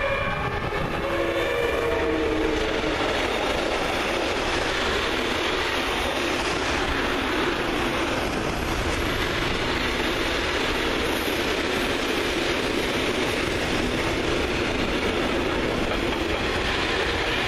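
DB class 152 electric locomotive passing with a whine that falls in pitch over the first second or two, then a long freight train of open wagons and tank wagons rolling by with a steady loud rumble of wheels on rail.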